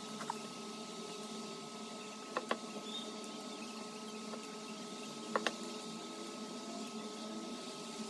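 A person drinking a herbal remedy drink over a steady room hum, with a few short clicks, two quick pairs of them about two and a half and five and a half seconds in.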